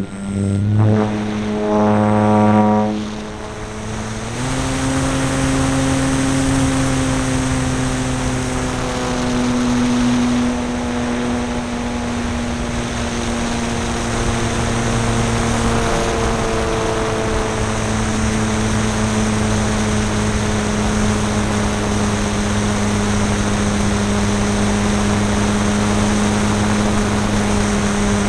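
Electric motor and propeller of a Multiplex AcroMaster RC plane, heard from a camera on its wing. The motor's pitch jumps up and down in a few short throttle pulses over the first few seconds, then settles into a steady whine. Wind rushes over the microphone throughout.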